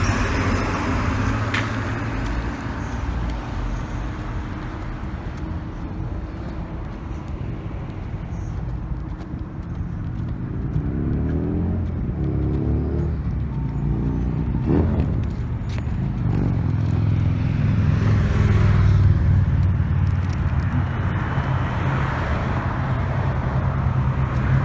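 Street traffic: a steady low car-engine rumble. A little under halfway through, a vehicle's engine rises in pitch several times, as if accelerating.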